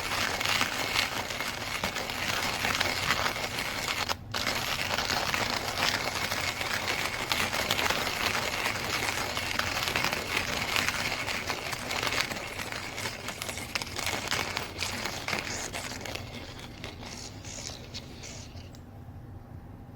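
Burr coffee grinder grinding beans: a dense crackling crunch over a steady motor whine and hum, with a brief break about four seconds in. The crunching thins out and fades near the end.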